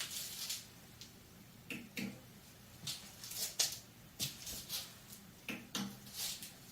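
Light, scattered clicks, taps and scrapes of metal engine parts and hand tools being handled, about a dozen irregular strokes, a few with a short ring.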